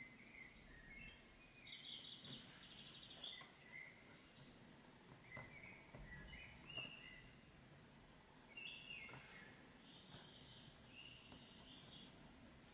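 Near silence with faint bird chirps and twitters scattered throughout, and a few faint light ticks.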